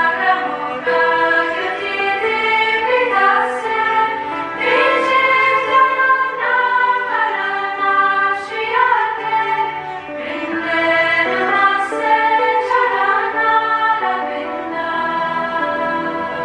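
Choir singing a slow devotional Sanskrit hymn in long held, melodic notes.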